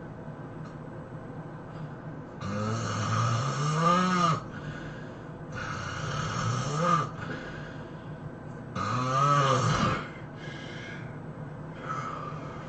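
A person snoring heavily: three loud, rattling snores about three seconds apart, each climbing in pitch near its end, with quieter breaths between them.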